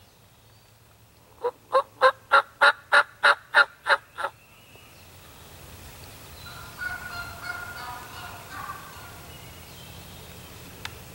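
A run of about eleven loud, evenly spaced wild turkey yelps, about three a second, followed a couple of seconds later by a quieter, rolling gobble from a gobbler.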